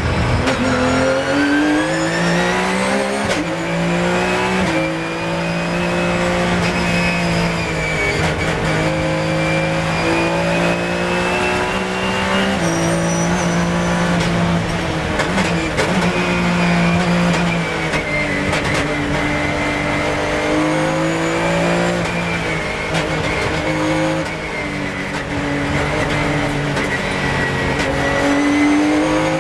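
Porsche 997 GT3 Cup race car's flat-six engine, heard from the cockpit, pulling hard through the gears. Its pitch climbs and drops back at each upshift, then falls briefly as the car brakes and downshifts near the end.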